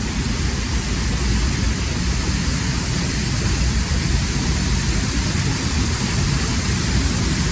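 Waterfall: a loud, steady rush of falling water with a deep rumble underneath.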